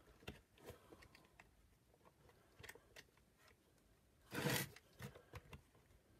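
Handling noises from plastic vacuum power-nozzle parts being fitted together by gloved hands: scattered light clicks and taps, and one short, louder scrape about four and a half seconds in.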